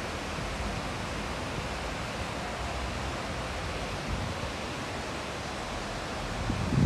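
A shallow river running through a stone-walled channel: a steady, even rush of water. A brief louder low sound comes in right at the end.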